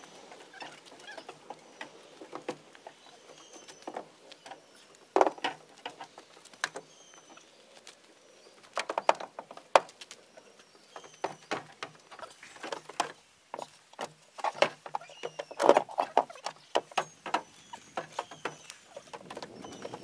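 Heavy landscape stones knocking and clattering as they are loaded into a pickup truck bed, in irregular clunks with the loudest ones about 5, 9 and 16 seconds in. Faint high bird chirps repeat in the background.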